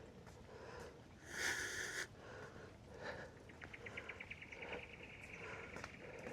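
Faint outdoor quiet with a short breathy sniff about a second and a half in. From halfway through, a rapid, steady high-pitched pulsing trill of about ten pulses a second runs on.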